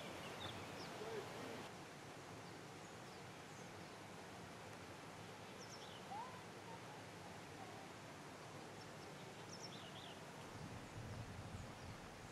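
Faint outdoor ambience: a steady hiss with a few faint, short high chirps now and then and one brief gliding note about six seconds in.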